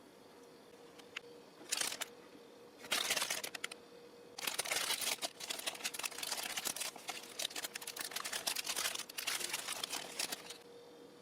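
Crinkly plastic food packaging being handled and opened: two short crackling rustles, then a long stretch of continuous crinkling from about four seconds in until near the end.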